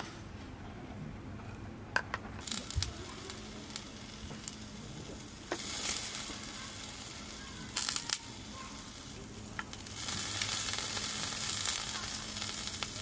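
Duck meat sizzling on a stainless charcoal tabletop grill, the hiss swelling and fading and strongest near the end. A few sharp clicks of utensils against jars and small steel dishes.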